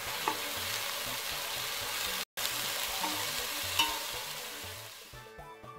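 Shredded cabbage, carrots and chicken sizzling in a hot pan as they are stir-fried and turned with a metal spatula, with a scrape or two of the spatula on the pan. The sound cuts out for a moment about two seconds in.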